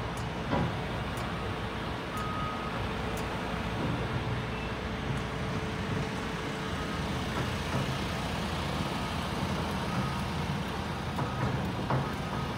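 Heavy earthmoving equipment's diesel engine running steadily, a low even hum, with a few faint short high beeps now and then.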